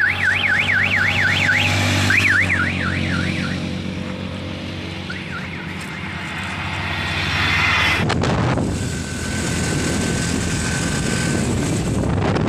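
A warbling electronic vehicle horn or alarm, its pitch swinging up and down about four to five times a second, sounds in two bursts over the hum of a passing vehicle's engine. Later, road noise and wind buffet the microphone.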